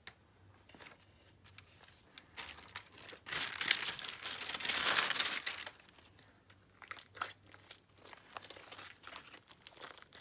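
Hands stretching, folding and squeezing a glue slime on a paper sheet, with small crackling clicks throughout and a louder crinkling stretch in the middle.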